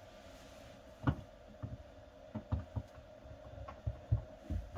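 Irregular low, dull knocks and bumps, the strongest about a second in, from work starting on the screws that fix a toilet to the floor, over a steady hum.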